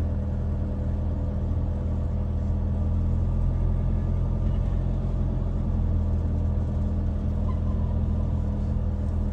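Engine and road noise of a Dethleffs motorhome heard from inside its cab while driving, a steady low hum.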